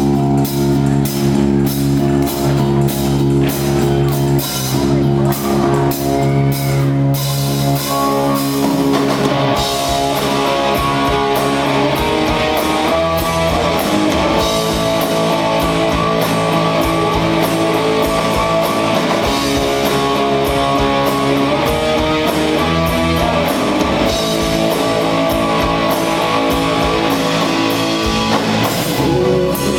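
Rock band playing live, with electric guitar chords over a drum kit beat; the sound grows fuller about eight seconds in.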